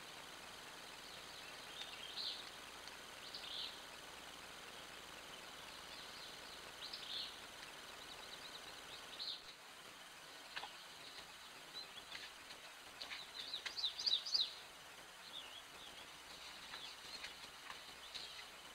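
Short bird chirps at scattered moments over a steady hiss, with a quick flurry of chirps about two-thirds of the way through.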